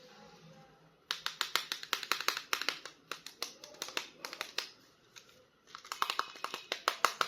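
Rapid plastic clicking and crackling from hands handling a toy action figure and its packaging during an unboxing, in two runs of quick sharp clicks with a short pause between.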